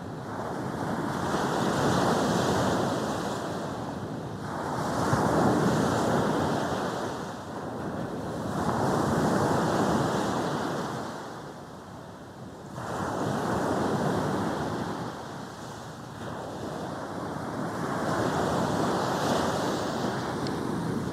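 Sea waves breaking and washing up a beach, the surf swelling and fading about every three to four seconds.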